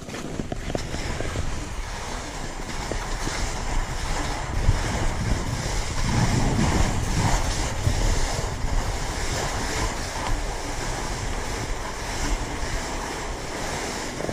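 Wind rushing over the microphone of a skier's body-worn camera, a steady low rumble, mixed with the hiss of skis sliding over granular spring corn snow.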